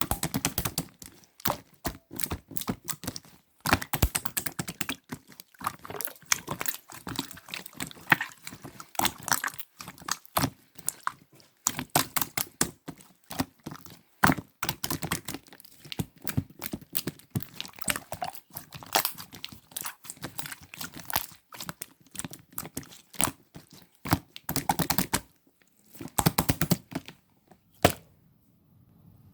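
Hands kneading and stretching slime: quick runs of sticky clicks, squelches and crackles, pausing briefly about 25 seconds in and again near the end.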